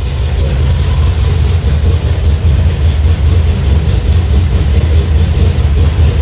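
Cammed 6.0 L LQ4 V8 with LS3 top end and a 228/228 cam, idling loudly and steadily with a regular rhythmic pulse.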